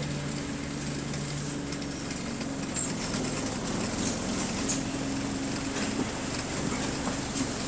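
Inside a moving bus: the engine runs with a hum that shifts in pitch, over a steady high whine, and the body rattles and ticks now and then.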